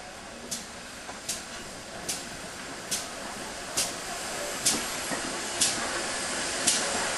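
GWR 6400-class pannier tank No. 6435 working slowly, its steam exhaust giving short chuffs about once a second. The beat slows slightly and grows louder as the engine draws closer.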